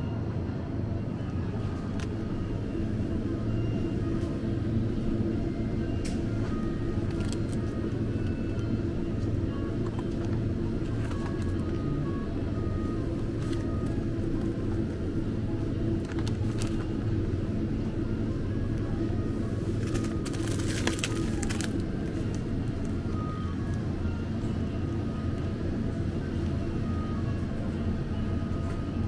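Supermarket ambience: a steady low hum with faint music playing over it, and a few short clicks and rustles of packaging and a shopping basket being handled, the longest about twenty seconds in.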